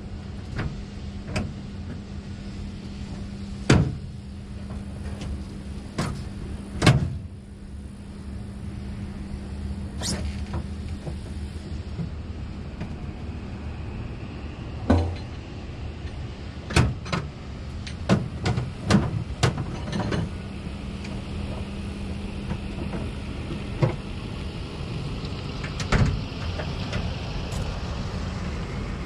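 Heavy truck's diesel engine idling with a steady hum, broken by scattered sharp knocks and clanks. A pickup truck drives past near the end.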